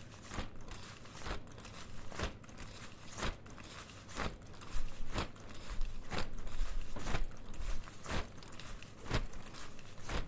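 Foley imitation of a dragon's wings flapping: a steady series of flaps, about one a second.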